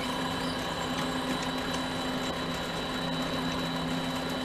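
Mini lathe running at a steady speed, its motor humming with a high steady whine, while a tailstock drill is fed into brass hex stock.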